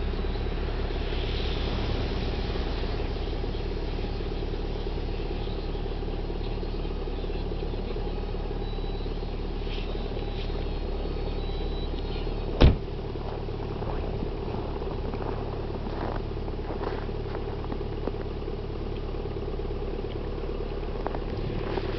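1998 VW Jetta TDI's 1.9-litre four-cylinder turbodiesel idling steadily in the cold after a first start at −12 °C. A single sharp knock sounds about halfway through.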